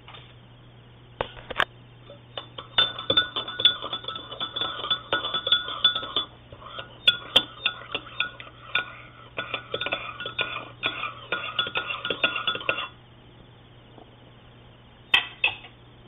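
Metal teaspoon stirring coffee in a ceramic mug: rapid clinking and ringing against the mug's sides for about ten seconds, then it stops suddenly. Two more clinks come near the end.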